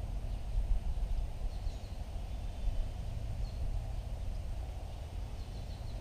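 Outdoor ambience: a steady low rumble with a few faint, short, high bird chirps scattered through it.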